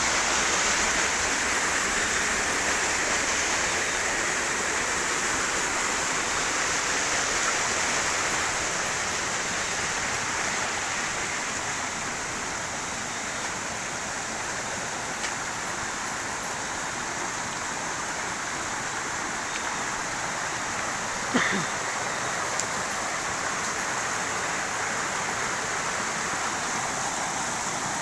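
Small rocky stream running, a steady rush of water over stones. A single short knock sounds about three-quarters of the way through.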